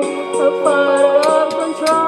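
A woman singing into a handheld karaoke microphone over a backing track, holding long, gently bending notes, with light percussion ticks from the track.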